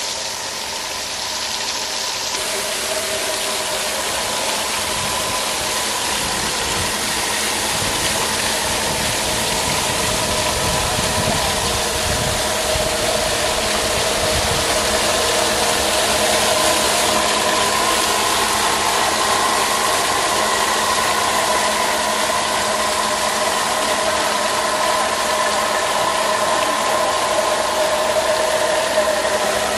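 High-pressure water jet spraying onto a homemade bladed turbine wheel, a steady hiss of spray mixed with the whir of the spinning wheel and its belt-driven generator, with a steady hum running through it.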